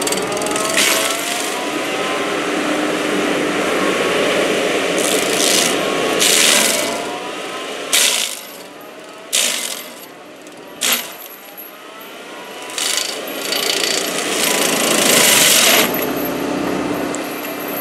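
Excavator-mounted FAE SCL/EX/VT stump grinder, its spinning toothed disc grinding into wood and soil with a steady grinding rasp and repeated sharp surges as the teeth bite. It eases off for a few seconds around the middle, broken by short sharp bursts.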